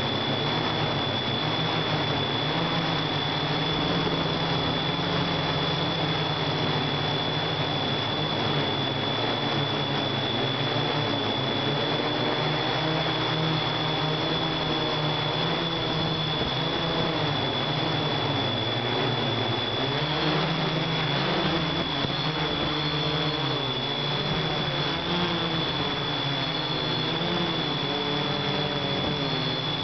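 Hexacopter's six electric motors and propellers buzzing, heard from the camera riding on the drone, with a thin steady high whine over them. The pitches waver more in the second half as the motor speeds change while the drone descends.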